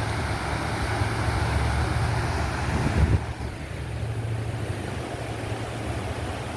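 Vehicle engine running steadily with a low hum under a broad rushing hiss. A thump about three seconds in, after which the hiss drops away.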